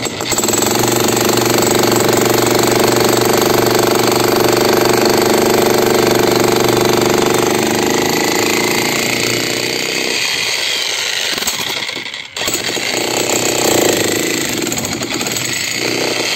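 Electric demolition breaker hammer running continuously as it breaks up a concrete roof slab. It stops briefly about 12 seconds in, then runs again.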